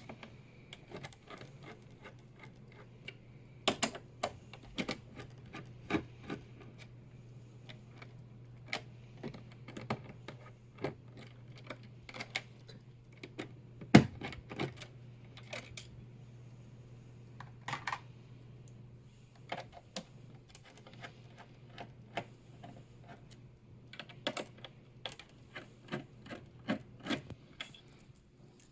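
Irregular small clicks, scrapes and light knocks of a screwdriver and the plastic CPU cooler retention brackets being unscrewed from a motherboard, with one sharp knock about halfway through.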